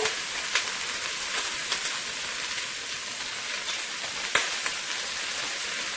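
Chopped vegetables sizzling in a little hot olive oil in a pot, a steady hiss with a few light clicks from stirring, the sharpest a little past four seconds in.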